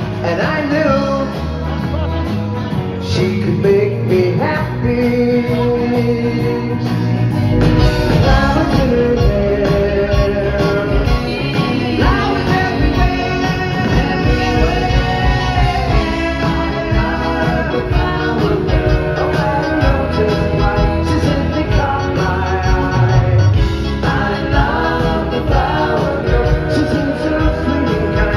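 Pop-rock band playing live, with singing over the instruments; the low end (bass and drums) comes in fuller about seven seconds in.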